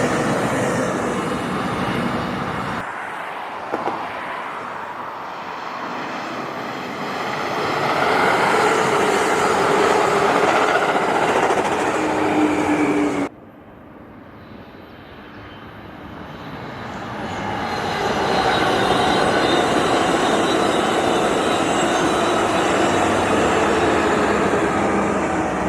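Trains passing on the tracks: a steady rumble of wheels on rail and locomotive engines. The sound changes abruptly about three seconds in, and drops sharply about halfway before building again as another train approaches.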